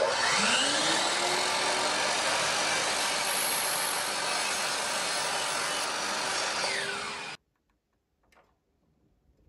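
Miter saw motor spinning up and the blade cutting through a small piece of wooden baseboard at a 23-degree angle, running steadily for about seven seconds before the sound cuts off suddenly.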